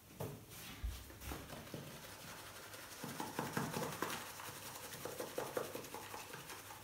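Small shaker jar of smoked paprika shaken over a bowl of soup: a quiet, quick rattling and tapping from about three seconds in. A soft knock about a second in.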